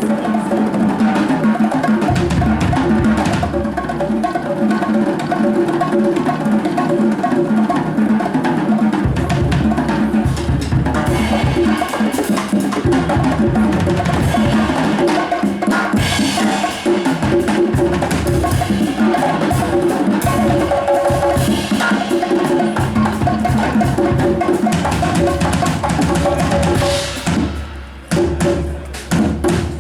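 A band playing live: drum kit and percussion with bass-drum thumps under sustained pitched instruments. Near the end the music thins out to separate drum hits.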